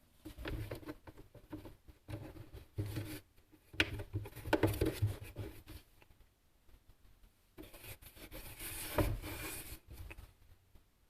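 Irregular handling noises of hands working materials: rubbing and scraping with light clicks and knocks, and a longer scraping rub about eight seconds in.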